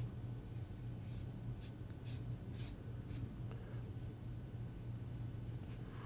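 Watercolour brush being stroked across paper: a series of soft, short brushing sounds, about two a second at first and then more spread out, over a faint steady low hum.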